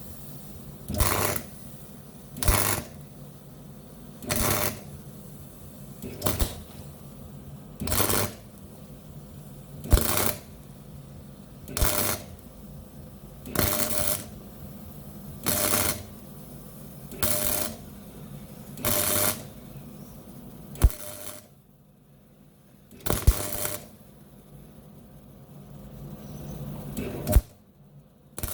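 MIG welder arc crackling in short bursts of under half a second, about one every two seconds, as a plug weld is built up in stitches on sheet steel. A steady hum runs between the bursts.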